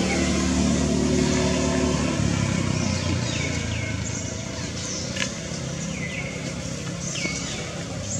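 A motor vehicle's engine hum that fades over the first few seconds. From about three seconds in it is joined by high chirps that slide downward, repeated in pairs every second or so, with a sharp click near the middle.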